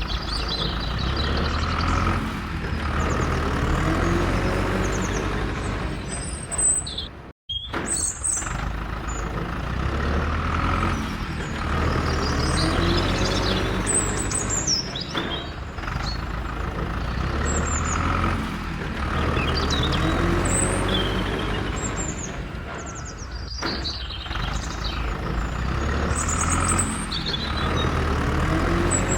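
Tractor engine running steadily, with birds chirping, the same few-second stretch of sound repeating about every eight seconds. There is a brief break about seven seconds in.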